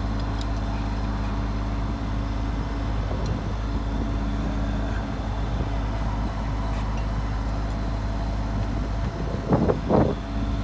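Bucket truck's engine running with a steady low hum while the hydraulic boom is worked from the bucket. A short louder burst of sound comes about nine seconds in.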